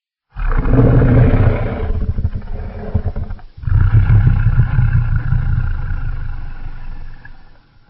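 Custom Godzilla roar sound effect: a deep, rough monster roar starting under half a second in and breaking off about three and a half seconds in. A second long roar follows at once and fades out near the end.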